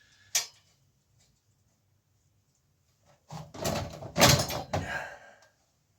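A single sharp click, then, after a pause, about two seconds of loud clattering and knocking as a bicycle's rear wheel is taken out of the frame in the work stand.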